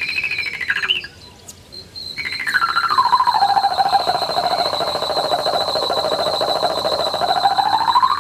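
Electronic tone from a pedal-powered sound-art stationary bike, sliding smoothly in pitch like a theremin: it rises to a high peak and falls, cuts out for about a second about a second in, then returns, sinks slowly to a low, level pitch and climbs again near the end, over a steady high whine.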